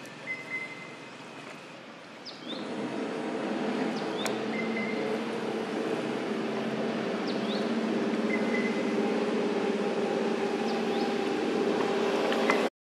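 A motor engine comes in about two and a half seconds in and then runs steadily, with short bird chirps repeating every couple of seconds over it. The sound cuts out abruptly near the end.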